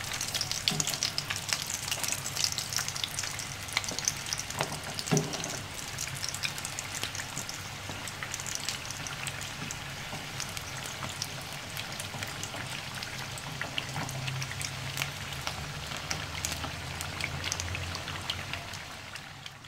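Samosas deep-frying in hot oil in a wok: a steady crackling sizzle, with a couple of light knocks from the slotted spatula used to turn them.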